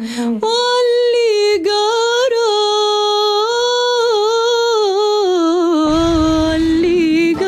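A woman singing an Arabic song unaccompanied, holding long notes with small wavering turns in pitch. About six seconds in, low-pitched backing music with a beat comes in under her voice.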